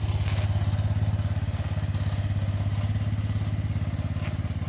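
An engine running steadily with an even, fast throb.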